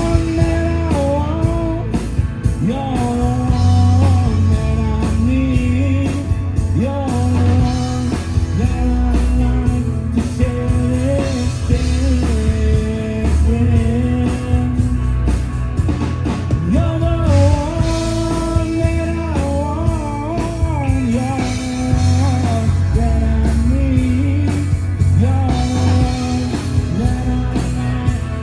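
Live rock band playing a song: electric guitar and singing over heavy bass and drums.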